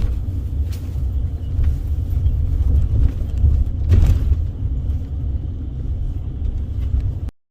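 Low, steady rumble of a tour bus heard from inside the cabin, with a few light clicks and knocks; it cuts off suddenly near the end.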